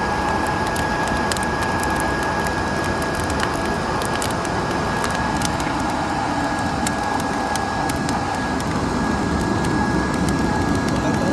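Wood fire burning in a brazier, crackling with scattered sharp pops over a steady hiss.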